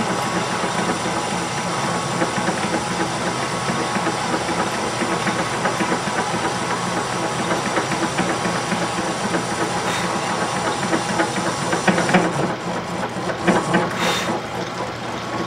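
Metal lathe running under a turning cut of about 18 thousandths on a round part, a steady motor hum with the hiss of the cutting tool. A few sharp ticks come from about twelve seconds in.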